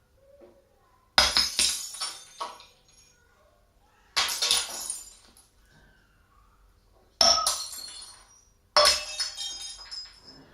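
Glass smashing four times, about a second, four, seven and nine seconds in, each crash followed by a short trail of smaller clinks as pieces fall. The crashes are a recording played back through hi-fi loudspeakers.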